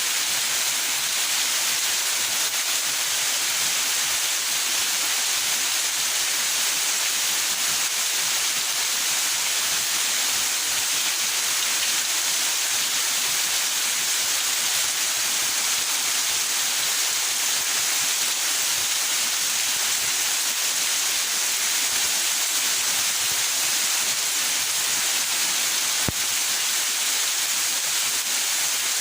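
Rain falling steadily, an even dense hiss with no let-up, with one faint tick about 26 seconds in.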